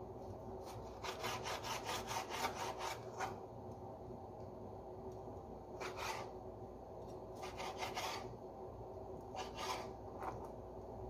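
Kitchen knife dicing raw chicken breast on a cutting board: a run of quick rasping strokes, about four a second, from about a second in, then a few scattered strokes later.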